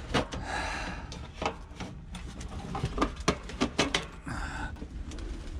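Irregular knocks, clicks and scraping as a small portable space heater is pulled out and set in place in a cramped wooden shed.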